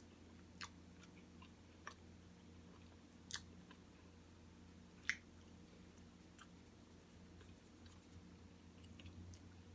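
Quiet chewing of chicken nuggets: a few soft mouth clicks and smacks in the first five seconds, the strongest about five seconds in, over a low steady hum.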